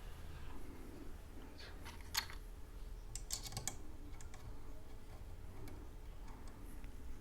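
Light clicks and taps of small metal screws and hardware being handled and sorted by hand. There is a sharper click about two seconds in and a quick run of clicks around three and a half seconds.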